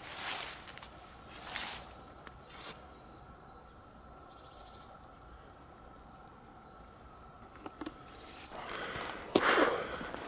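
Footsteps and rustling on the forest floor: a few steps in the first three seconds, a quiet stretch, then louder, quicker steps starting near the end.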